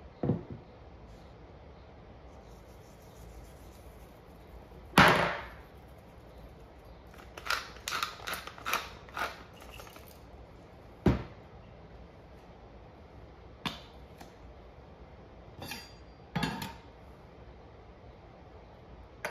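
Scattered knocks and taps of kitchen handling, such as utensils and food being worked on a board or plate. The loudest knock comes about five seconds in, a quick run of five taps follows around eight seconds, and there is a sharp single knock about eleven seconds in.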